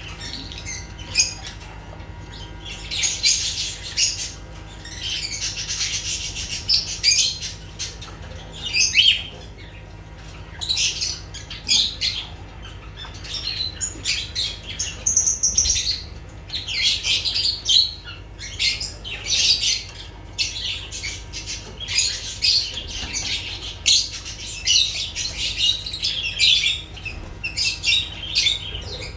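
Lovebirds calling in a run of high-pitched chirps that come in irregular bursts of a second or two with short gaps between them.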